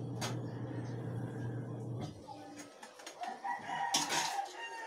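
A drawn-out animal call lasting about a second, starting about three and a half seconds in. Before it, a steady low hum stops about two seconds in.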